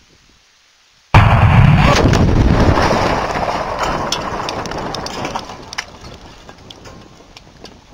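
A sudden, very loud blast about a second in, with a heavy low rumble that fades away over several seconds. Scattered sharp cracks and clicks, like falling debris, run through the fade.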